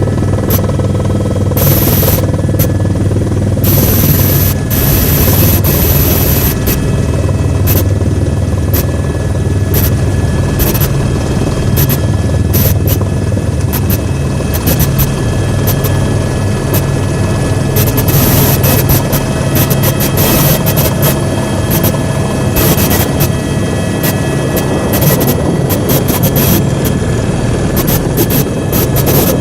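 Helicopter in flight, its rotor and turbine engine running steadily as a loud, continuous drone, with frequent short crackles over it.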